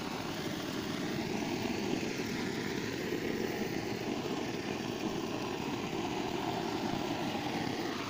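A brass blowtorch burning steadily, giving a continuous even rushing noise with no breaks.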